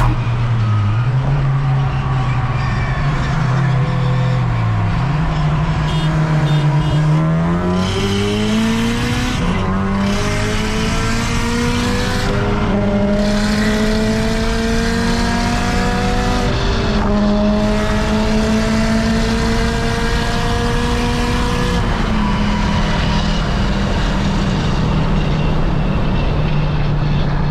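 Supercharged Honda Civic Si K24 four-cylinder heard from inside the cabin: cruising steadily, then a full-throttle pull with engine revs rising through the gears, two upshifts, then lifting off back to a steady cruise near the end.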